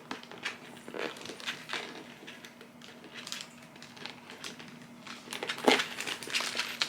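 Handling of a handbag as it is opened: scattered light clicks and rustles, busier near the end, over a faint steady hum.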